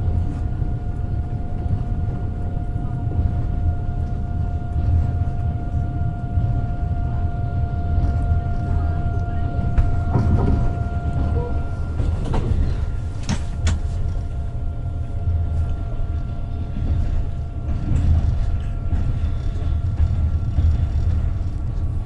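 Passenger train running, heard from inside the carriage: a steady low rumble of the wheels on the track with a thin steady whine that fades out about halfway, and two sharp clicks a little past the middle.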